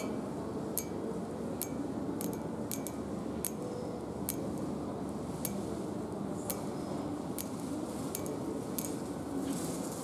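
Long acrylic fingernails tapping on a painted metal handrail: sharp clicking taps at irregular intervals, about one a second, sometimes two in quick succession. Under them runs the steady background hum of a shopping centre.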